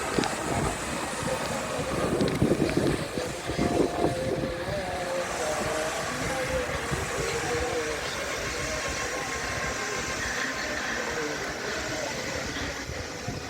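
Air ambulance helicopter's engine and rotor running close by, a steady heavy mechanical noise that grows louder for a couple of seconds about two seconds in, with faint voices under it.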